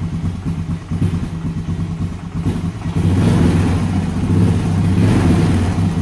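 2002 Honda Recon ES single-cylinder four-stroke engine idling steadily while it warms up, its choke partly opened. It grows louder for a couple of seconds from about three seconds in.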